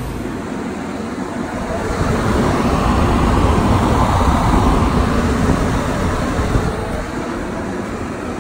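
Portable carpet-drier air movers (blue centrifugal blowers) running, a steady rushing of air with a low rumble that swells to its loudest midway and then eases.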